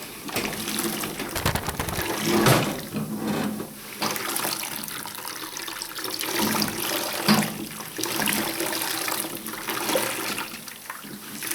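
Water sloshing and splashing in the tub of a 1960s Hoover 0321 wringer washing machine, in uneven surges with louder splashes now and then.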